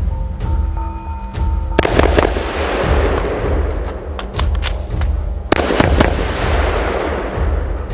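Shots from an M4-style carbine in two quick strings, about two seconds and five and a half seconds in, with a few single shots between; each string trails a long echo. Background music with a heavy pulsing bass beat plays throughout.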